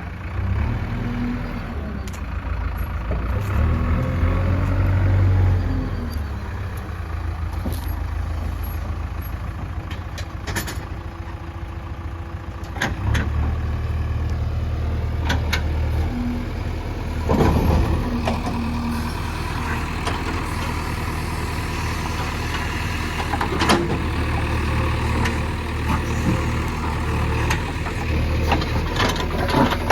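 Heavy diesel earthmoving machine working on soil: a low engine drone that rises and falls with the load. A few sharp metallic clanks come near the middle and toward the end.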